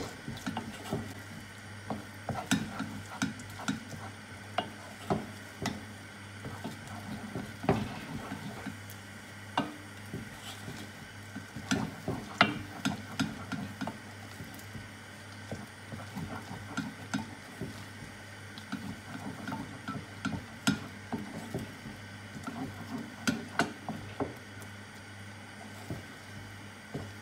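Wooden spoon stirring melting cheddar cheese in a stainless steel saucepan, with irregular taps and scrapes of the spoon against the pan over a soft sizzle from the hot mixture.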